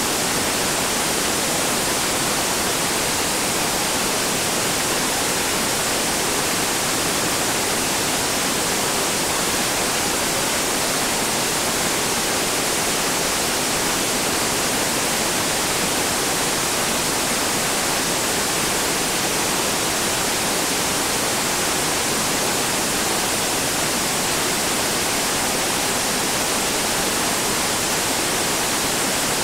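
Whitewater pouring over a bedrock waterfall drop: a loud, steady rush of water that does not change.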